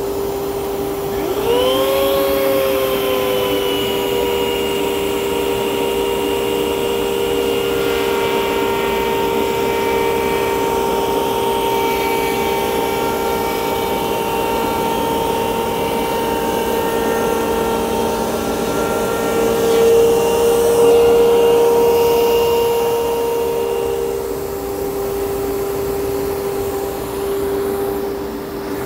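A table-mounted router, slowed to 13,000 RPM, spins up with a quickly rising whine about a second in, then runs at a steady pitch while a workpiece on a support board is fed along the fence past the bit, and is switched off a few seconds before the end. A steady dust-extraction hum runs underneath throughout.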